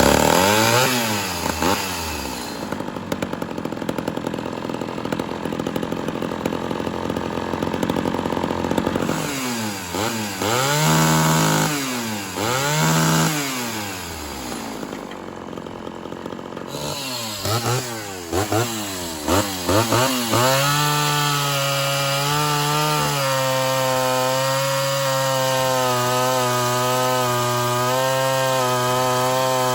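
Ported Homelite Super XL Auto 58 cc two-stroke chainsaw running while its carburettor is being tuned: it is revved up and down over and over, held at high revs for several seconds, given a few short blips, then settles into a steady idle from about two-thirds of the way through.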